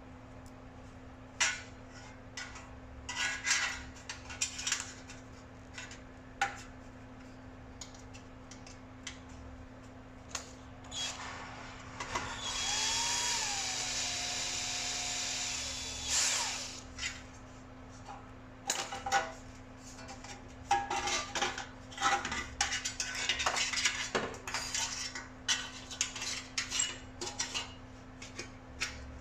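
A cordless drill or screwdriver runs steadily for about four seconds midway, among scattered clicks and clatters of screws and metal parts being handled during tumble dryer reassembly.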